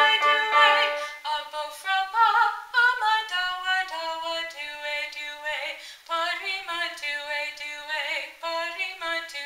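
A woman singing a choir song in a clear high voice, some held notes wavering with vibrato, accompanied on an upright piano.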